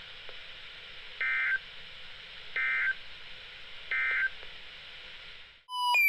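NOAA Weather Radio broadcast through a Reecom weather alert radio's speaker: three short bursts of digital SAME data tones about 1.4 seconds apart over steady radio hiss, the end-of-message code that closes an alert. A short beep sounds right at the end.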